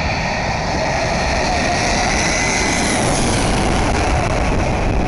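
Boeing 747's four jet engines on landing, a loud steady roar with high whining tones that slowly shift in pitch.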